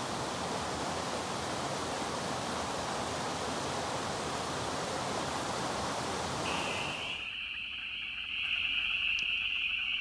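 Rushing water of a stream, a steady even roar. About seven seconds in it cuts to a steady, high-pitched calling chorus.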